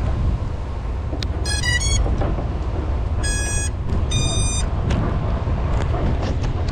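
Electronic beeps from an FPV quadcopter resting on the ground: a quick run of changing tones, then two longer steady beeps, over a steady low rumble.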